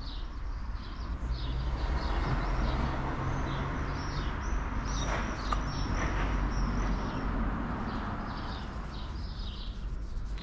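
Small birds chirping repeatedly, several short high chirps a second, over a low steady rumble.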